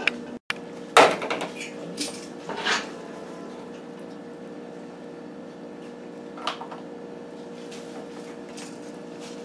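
Metal tongs clinking against a stainless steel pot a few times as pasta is lifted out, the loudest clink about a second in. A steady low hum runs underneath.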